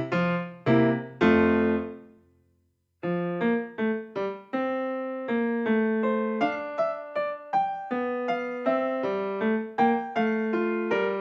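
Background solo piano music. It fades out about two seconds in, stops briefly, and a new piano passage starts about three seconds in.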